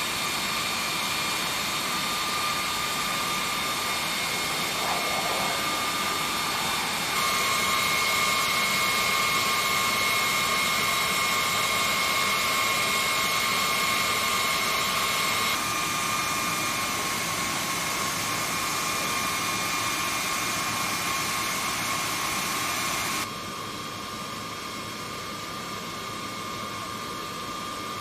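Steady jet-turbine whine: a high whistling tone over a rushing hiss, its level stepping up or down abruptly a few times.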